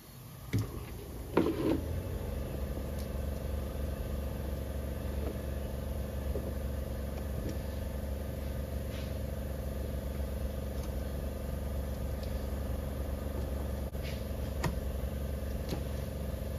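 A couple of knocks, then a steady machine hum comes on about two seconds in and holds, with a few light clicks near the end.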